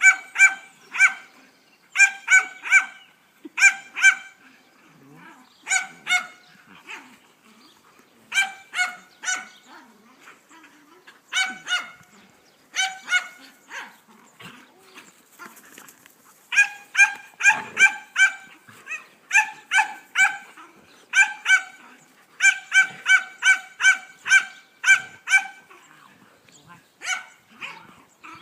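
A dog barking in quick runs of high yaps, two to five at a time, with short pauses between runs.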